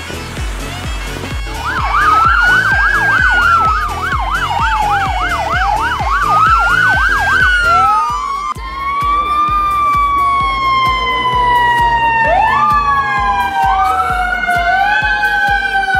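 Police sirens sounding over background music with a steady beat. A fast up-and-down yelp of about three cycles a second runs over slow rising and falling wails. After about eight seconds it gives way to a slower siren tone that falls and then sweeps back up twice.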